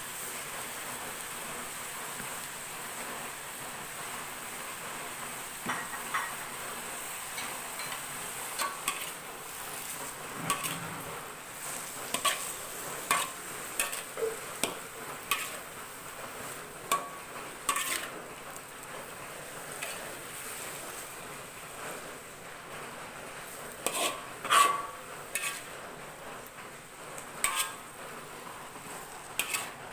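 Metal spatula stirring and scraping in a metal wok, stir-frying bamboo shoots with leafy greens, with irregular clicks and knocks against the pan over a steady sizzling hiss. The scraping starts about six seconds in and is loudest a little before the end.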